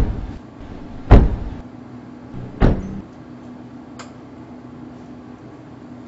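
Three heavy thuds about a second and a half apart, the third a little weaker, then a faint click about four seconds in, over a steady low hum.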